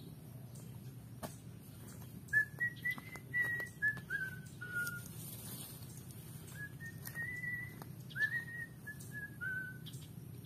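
A person whistling a short tune in two phrases of clear held notes, the first about two seconds in and the second about six and a half seconds in, each phrase stepping down in pitch at its end.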